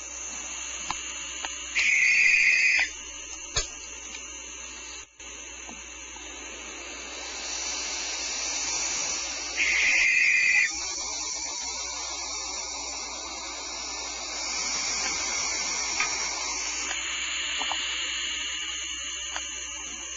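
Barn owl chicks begging with continuous hissing snores, a sign that they are hungry for food. Two louder, harsher calls about a second long come about two seconds in and again about ten seconds in.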